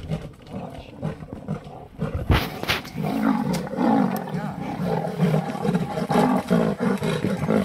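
Big cats, a lioness and a leopard, growling at each other as they fight, in repeated pulsing growls about two or three a second. The growls start about three seconds in, after two sharp noises.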